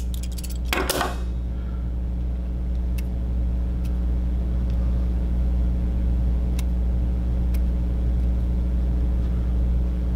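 A self-adjusting wire stripper is squeezed once, about a second in, with a sharp snap as it strips insulation off a thin wire. A few faint ticks follow as fingers handle the bare strands. A steady low hum runs underneath.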